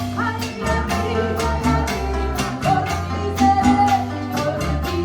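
Instrumental passage of a Latin band song: a steady percussion beat with bass and melody instruments, and no singing.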